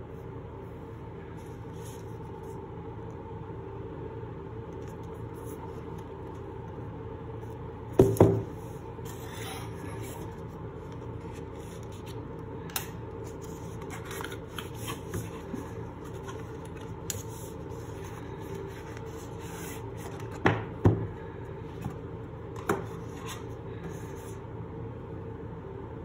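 Hands handling a white cardboard watch box on a table: cardboard rubbing and sliding as the sleeve and lid come off, with a pair of loud knocks about eight seconds in, another pair about two-thirds of the way through, and a few lighter clicks. A steady hum sits underneath.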